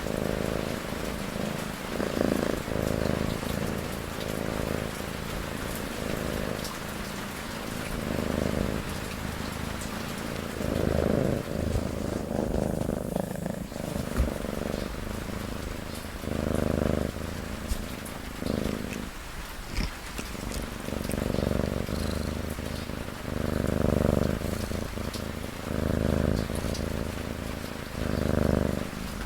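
A cat's low, rhythmic purring snores, one breath-swell every second or two, over a steady hiss of rain.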